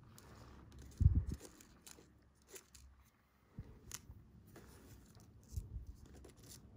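Hands handling fishing line and a small hook on a tabletop: soft rustling and light ticks of the line, with a thump about a second in and a smaller one near the end.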